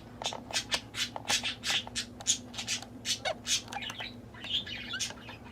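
Pet budgerigars chirping and chattering, a quick run of short, sharp squawky calls several times a second.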